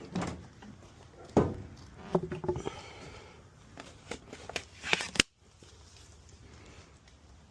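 A series of sharp clicks and knocks, with a louder cluster about five seconds in, after which the sound cuts off suddenly.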